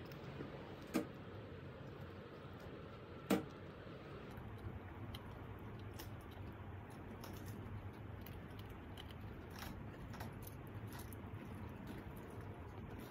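Pomeranian gnawing a hard yak cheese chew: scattered faint clicks of teeth on the chew, with two louder sharp clicks in the first few seconds.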